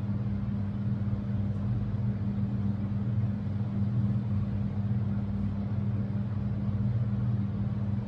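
Steady low background hum with a constant pitch and no changes.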